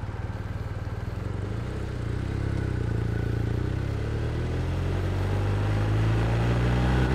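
BMW R1250R's 1254 cc boxer twin idling at a standstill with an even pulse, then pulling away about a second and a half in, its pitch climbing as the bike accelerates.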